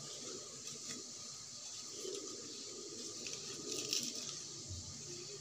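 Soft handling noises of hands working food on a ceramic plate: a few small taps, a slightly louder one about four seconds in, over a steady hiss.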